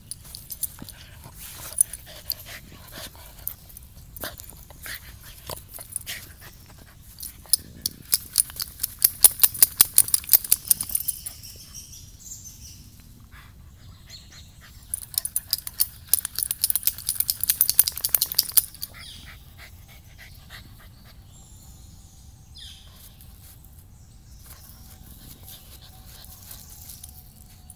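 Shiba Inu rolling and rubbing its body and face on a dirt trail: scratchy scraping and rustling against dirt and dry leaves, in two longer runs of rapid scraping about eight and fifteen seconds in.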